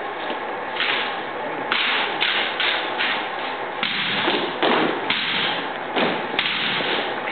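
Armed drill team working drill rifles in unison: rifle butts thumping on the hard floor, hands slapping the rifles and heels stomping, in an irregular series of sharp strikes about one or two a second.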